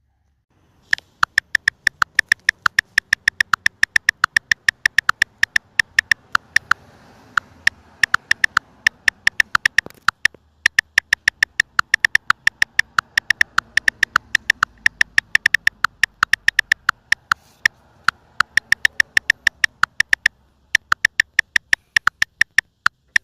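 Rapid, regular mechanical clicking, about four or five sharp clicks a second, with two short pauses, one about ten seconds in and one near twenty seconds.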